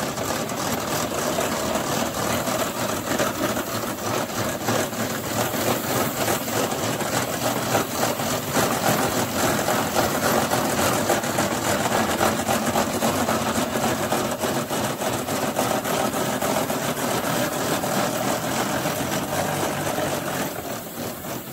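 Power wheelchair's electric drive motor and reduction gearbox running as it drives over paving stones, with a continuous grinding rattle from the gearbox. This grinding is the fault the owner puts down to too little and low-grade grease inside the gearbox.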